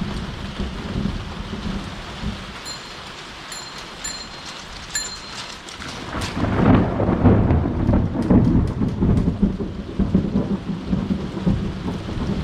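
Thunder rumbling under steady rain. A few short high chirps come in the quieter stretch, then a loud rolling peal of thunder builds about halfway through and keeps rumbling.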